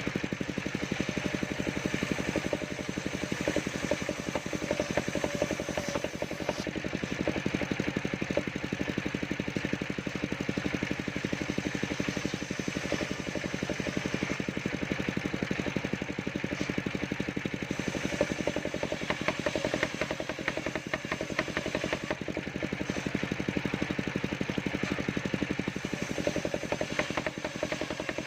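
Engine-driven circular sawmill running steadily, its engine keeping a constant, even beat.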